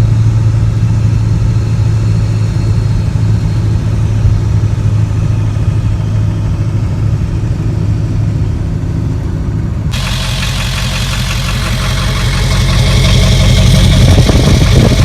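Ford 7.3 Powerstroke turbo-diesel V8 heard from inside the cab on the move: a steady low engine drone. About ten seconds in the sound changes abruptly to a brighter, hissier mix that swells louder near the end.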